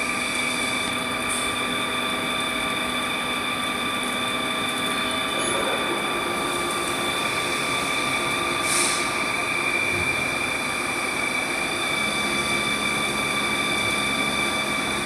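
CNC lathe running through a turning and grooving cycle: a steady machine whine made of several held tones over a running noise, shifting in pitch about five and a half seconds in and again about twelve seconds in, with a short hiss about nine seconds in.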